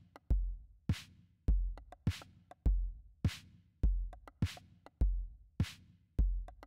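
Background music: a drum-machine beat, deep kick and sharp snare taking turns at a steady mid tempo, with light ticks between.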